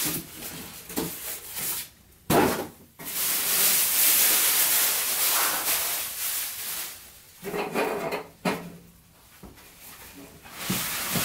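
Cardboard shipping box and packing material being handled and unpacked: rustling and scraping of cardboard and packing, with a sharp knock about two seconds in.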